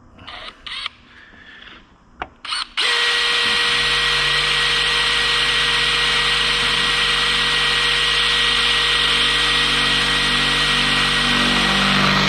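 Mac Tools cordless drill boring an 8.5 mm hole through a metal bracket held in a vise. After a few short clicks, the drill starts about three seconds in and runs at a steady speed under load.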